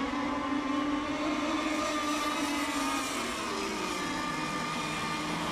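Radio-controlled racing boat's motor running at speed across the water, a steady high whine that drops in pitch about three and a half seconds in.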